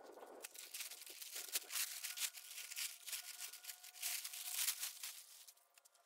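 Blue polyethylene tarp crinkling and rustling as it is unfolded and spread out on the ground, the crackle easing off near the end.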